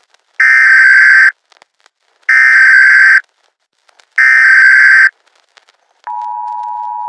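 Emergency Alert System SAME header: three loud bursts of screeching digital data tones, each about a second long and about two seconds apart. About six seconds in, the steady two-tone EAS attention signal begins.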